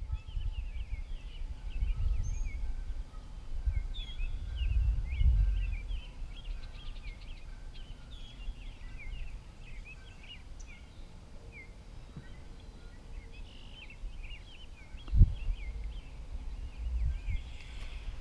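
Several birds chirping and calling continuously in quick, overlapping short notes, over an irregular low rumble, with one sharp knock about fifteen seconds in.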